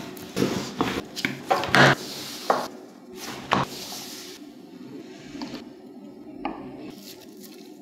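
Wooden rolling pin working dough on a wooden table, with a string of knocks and thuds over the first few seconds. Quieter handling follows, then a metal pizza-cutter wheel rolling through the thin dough sheet near the end.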